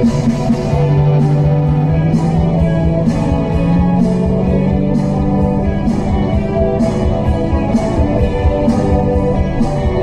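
Rock music with guitar and a steady drum beat.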